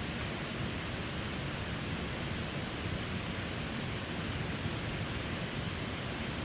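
Steady rushing noise of falling water, even and unbroken.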